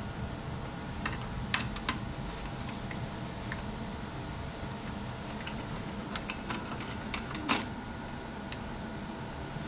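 Scattered light metallic clinks and ticks, several with a short high ring, from hand tools and small steel parts handled at a BMX bike's rear axle. The loudest comes about two thirds of the way in, over a steady low hum.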